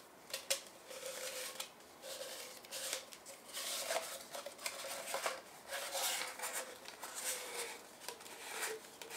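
Thin titanium stove chimney parts and rings being handled and fitted together: irregular light metallic clicks, taps and scraping.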